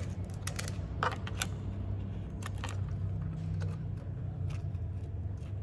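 A few sharp, light clicks and taps from hands handling small parts and a silicone applicator, over a steady low hum.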